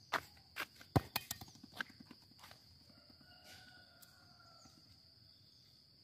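Footsteps and knocks on a concrete court: several irregular sharp taps in the first two and a half seconds, with one louder thump about a second in. Under them runs a steady high-pitched hum, and a faint drawn-out call comes near the middle.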